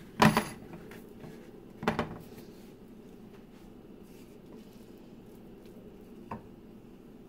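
Light knocks against a frying pan as corn tortillas are set down in it to warm, two in the first two seconds and a smaller one near the end, over a faint steady background hum.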